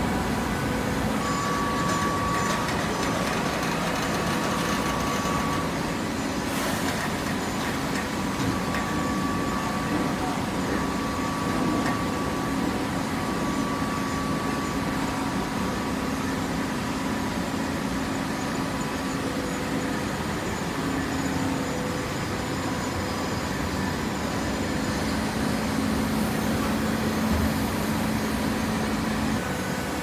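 Horizontal hydraulic baler running: a steady mechanical hum with faint held tones and no distinct strokes.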